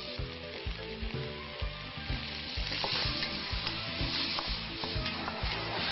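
Mutton sizzling and frying in hot oil in a large wok, stirred with a long metal ladle that now and then knocks against the wok.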